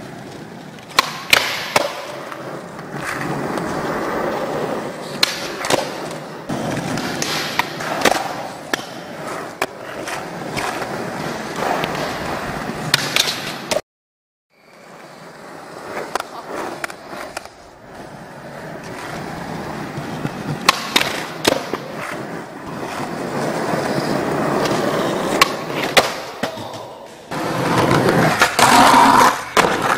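Skateboard wheels rolling steadily over hard ground, broken by many sharp clacks of the board striking the ground. The sound cuts out for a moment about halfway through, then the rolling picks up again, with louder clacks near the end.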